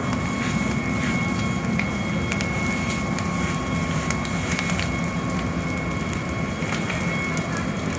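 A large fire burning with a steady low rumble and frequent sharp cracks and pops. A faint steady high tone runs underneath.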